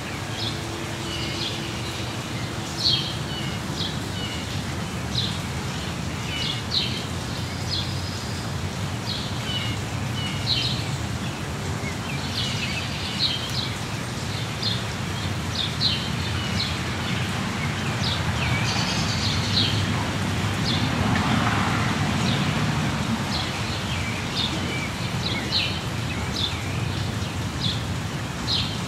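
Steady rain falling in a suburban neighbourhood, with small birds chirping in short, repeated calls throughout. About two-thirds of the way through, a broad rushing swell rises and fades over a few seconds.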